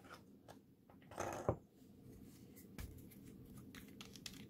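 Faint handling of a small plastic glue bottle: a brief scraping rustle about a second in and a light click near the middle, as the bottle is picked up and its cap is worked loose.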